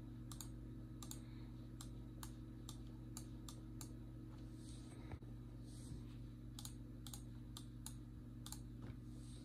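Computer mouse clicking: sharp single clicks about every half second, in two runs with a short pause between, over a steady low electrical hum.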